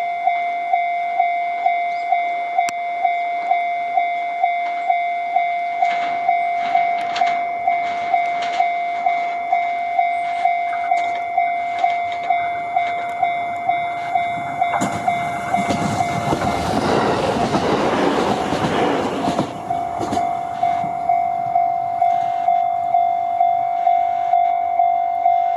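Japanese level-crossing warning bell ringing in a steady repeating clang. About fifteen seconds in, a 701 series electric train passes over the crossing for about five seconds, its running noise and wheel clatter drowning the bell, which then rings on.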